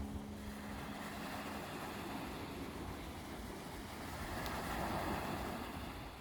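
Sea waves washing ashore with wind rumbling on the microphone; a wave swells about four to five seconds in. The last held notes of a song die away in the first second and a half.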